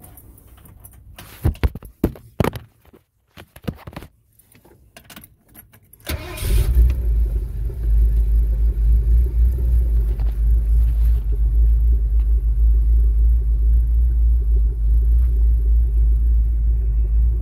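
A few sharp knocks and rattles of the phone and keys being handled, then about six seconds in the 1979 Ford Bronco's 400M V8 starts from cold and settles into a steady, low idle through three-chamber Flowmaster mufflers, heard from inside the cab.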